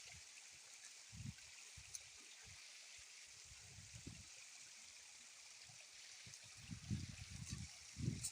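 Faint, steady rush of flowing water from a stream or waterfall. Low muffled thumps come now and then and bunch together near the end.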